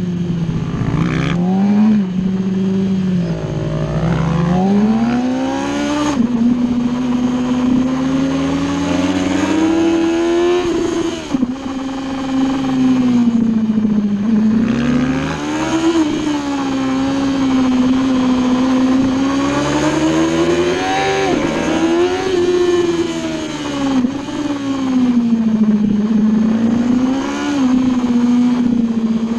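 Superbike engine heard from on board at track speed, revving up and down with the throttle through corners. The pitch jumps abruptly several times at gear changes.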